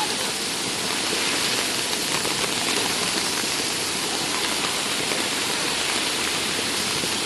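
Heavy rain pouring down: a steady, dense hiss of rainfall.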